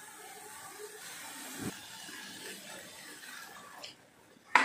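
Cluster beans and masala sizzling quietly in a steel kadai on a gas stove, with a single knock of the steel spatula about halfway through and a sharp clink near the end.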